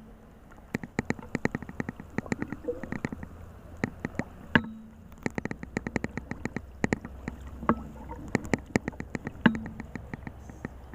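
Rapid, irregular splashing and slapping of water, several a second, with a few louder hollow knocks.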